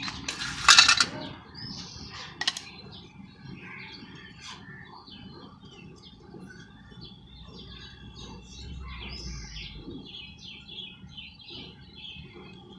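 Small birds chirping repeatedly, with a short loud scrape about a second in and a sharp click soon after.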